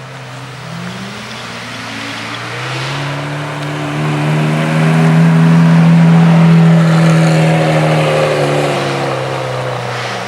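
A car's engine driving past, its pitch rising early and then holding steady. It grows louder to a peak about six seconds in, then fades as it moves away.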